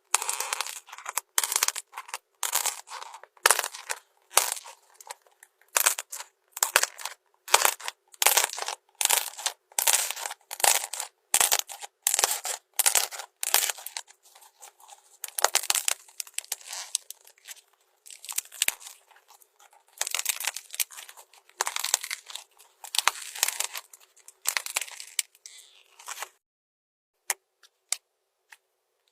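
Slime being squished and worked, giving a long run of short crinkly bursts, roughly one or two a second, that stops after about 26 seconds. A few sharp clicks follow near the end.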